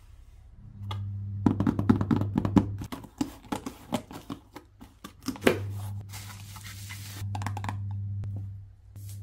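Quick run of sharp clicks and knocks from objects being handled, then a short rubbing sound, over a steady low hum.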